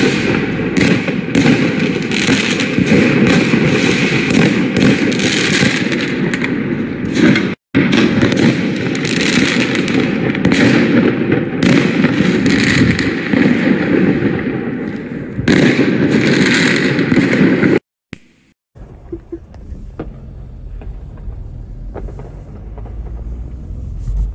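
Fireworks going off in rapid succession, a dense run of crackling bangs and sharp reports. About eighteen seconds in the sound cuts off and gives way to a much quieter stretch with only scattered distant pops.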